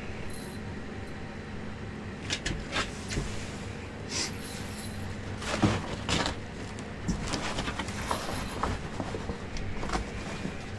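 Boots scuffing and knocking on an ice-fishing house floor, with clothing rustling. A steady low hum runs underneath. The knocks come scattered, and the loudest lands a little past halfway.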